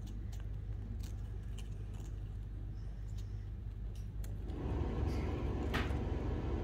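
Steady low hum with small scattered clicks of the parrot nibbling a biscuit. About four and a half seconds in a louder, steady machine noise starts up, with one sharp click a little later, which the owner takes for the air conditioner switching on.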